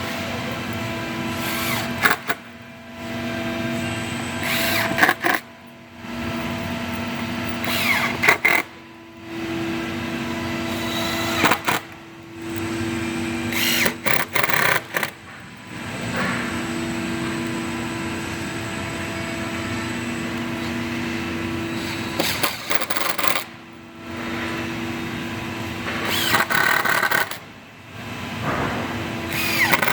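Power drill driving screws into table panels, running in a series of runs a few seconds long with short pauses and clicks between.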